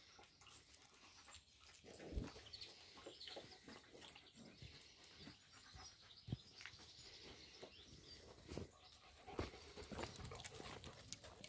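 Faint puppy noises and scuffling on gravel as puppies play-fight, with a few brief louder yelps or thumps.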